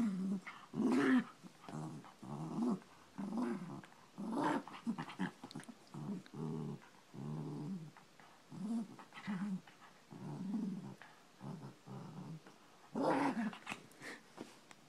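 Small dog play-growling over and over while tugging on a stuffed toy, a rapid string of short growls that rise and fall in pitch, louder about a second in and again near the end.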